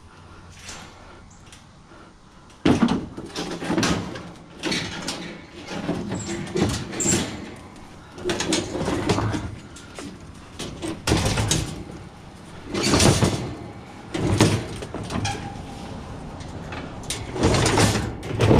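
Scrap metal being handled and set up onto a load: a series of irregular clanks, knocks and scraping bangs, starting after a couple of quiet seconds.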